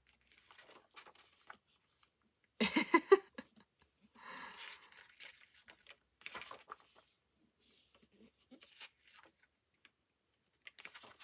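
Paper pages of a spiral-bound diary being turned and handled: scattered soft rustles, with one brief louder sound about three seconds in.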